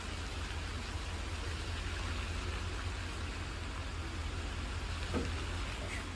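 Loaded timber truck's diesel engine running with a low, steady rumble as the rig creeps slowly through a tight turn, under an even hiss.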